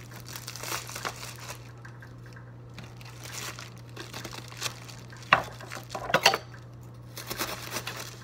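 Plastic wrap crinkling as it is pulled and crumpled off a head of iceberg lettuce, with a few louder sharp clicks a little past the middle.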